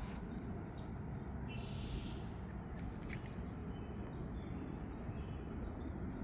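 Small songbirds chirping in short, scattered calls over a steady low background rumble, with one brief buzzy call about two seconds in.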